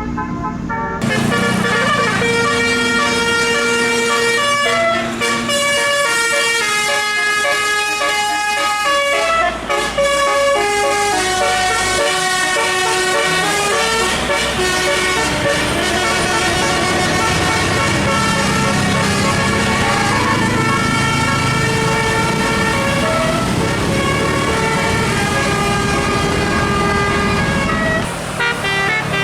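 Telolet horn on a tour bus playing a long melody of stepped notes, several tones sounding together, starting about a second in.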